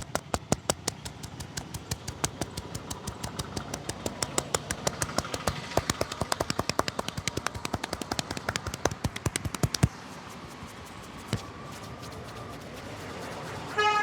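Barber's hands slapping and chopping in a fast, even rhythm of several strikes a second during a head massage, stopping abruptly about ten seconds in. A brief pitched honk sounds near the end over steady street background.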